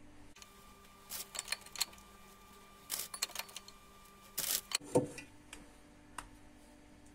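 A spoon and biscuits clicking and clattering against a plate and pot while a biscuit-and-chocolate dessert is layered, in short bunches of light clicks with one heavier knock about five seconds in.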